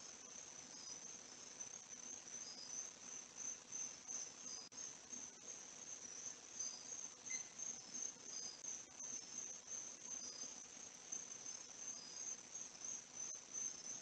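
Faint chorus of crickets trilling steadily in a high, pulsing tone, with shorter chirps repeating about once a second.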